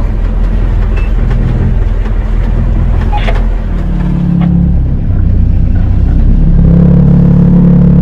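Outrigger fishing boat's engine running steadily under way, growing louder and fuller about halfway through.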